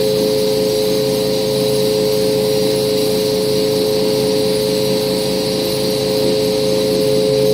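Pressure washer running steadily, a constant motor whine under the hiss of its water jet spraying onto a soaked rug.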